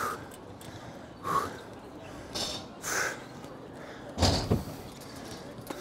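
A worn-out rider's heavy breathing close to a clip-on microphone: a handful of loud breaths about a second apart, with a louder muffled thump a little after four seconds.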